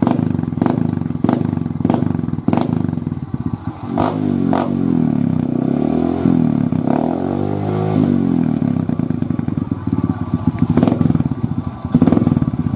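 Yamaha Jupiter motorcycle engine heard through a muffler whose insides have been hollowed out for a bassy note, revved with sharp throttle blips. In the middle the engine is held up for a few seconds, its pitch rising and falling, before the quick blips resume near the end.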